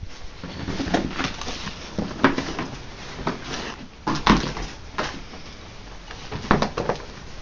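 Irregular knocking, scraping and rustling of people moving about and handling things among debris, with louder knocks about 2, 4 and 6.5 seconds in.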